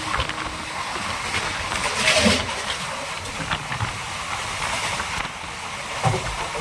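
Railway train noise: a steady rumble with scattered clanks, and a brief louder burst of hissing noise about two seconds in.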